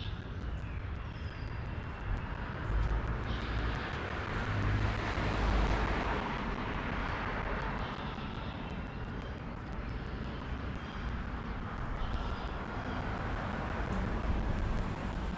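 Airplane passing overhead: a broad rushing drone that swells to its loudest about halfway through, then slowly fades, over a low rumble.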